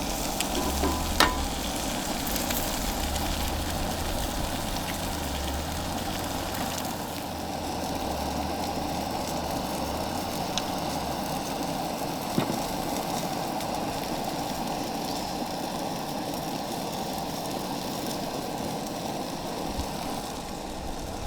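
Eggs sizzling in a frying pan, a steady hiss with a couple of sharp clicks.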